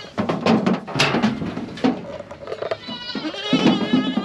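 Kiko goat kids bleating, with a quavering bleat from about three seconds in, over a few sharp knocks and rustling from handling.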